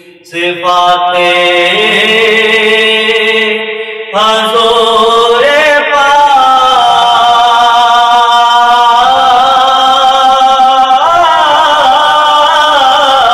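A young man singing an Urdu naat into a microphone, holding long notes with wavering ornaments. A new phrase starts just after the beginning and another about four seconds in.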